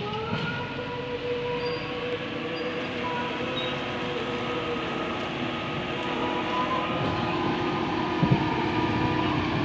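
JCB backhoe loader's diesel engine revving up and then running steadily at high revs, with a whining tone over it. There is a single sharp knock about eight seconds in.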